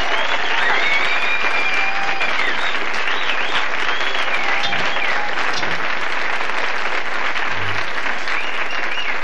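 Studio audience applauding and cheering, with high gliding whistles over the clapping in the first few seconds.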